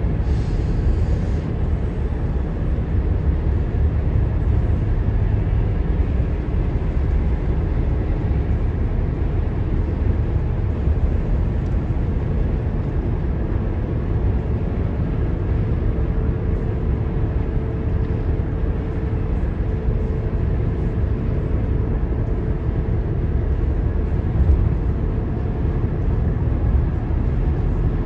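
Steady low rumble of a car driving at highway speed: tyre and engine noise that holds even throughout.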